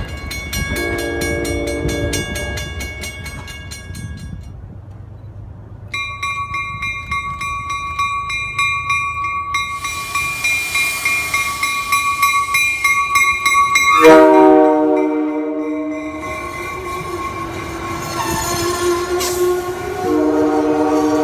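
Railroad grade-crossing warning bell ringing rapidly, with a short horn note about a second in. After a cut, another crossing bell rings as an MBTA commuter train approaches. The train then sounds a loud multi-note horn blast about 14 seconds in and blows again near the end as its coaches roll past.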